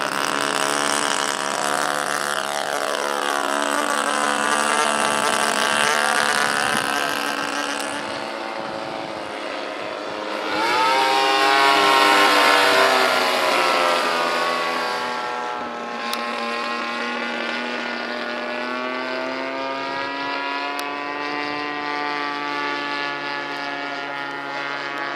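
Small two-stroke petrol engines of radio-controlled scale model planes in flight, the engine note rising and falling as they manoeuvre. About eleven seconds in, the 26cc-engined Ryan STA model comes by loudest, its pitch dropping as it passes and moves away.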